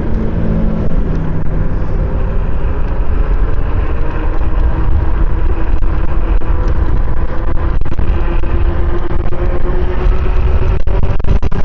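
Riding a Yume Predator electric scooter: wind buffets the microphone, with a faint motor whine that slowly rises in pitch.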